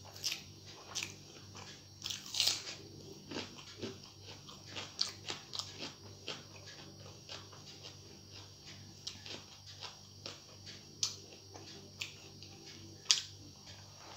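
Close-miked eating: fingers mixing rice on a steel plate and mouthfuls being chewed, with many short sharp clicks and smacks, the loudest about two seconds in and near the end. A steady low hum runs underneath.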